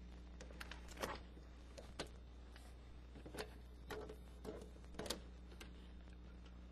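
Faint, scattered clicks and scrapes of a plastic trim tool prying rubber beading out of its groove along a convertible top's rear-window lining, over a steady low hum.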